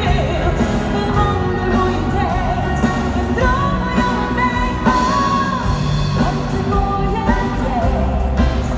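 A woman singing live through a handheld microphone over a band with drums and keyboard, holding long notes.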